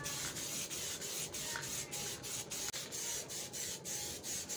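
Aerosol spray can of Diton Premium sparkling gold paint hissing steadily as a thin coat is sprayed onto a motorcycle wheel rim.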